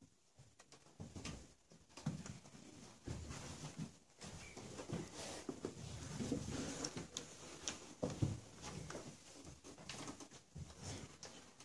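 Soft, irregular rustling and shuffling with scattered small clicks and knocks in a small room, starting abruptly out of near silence.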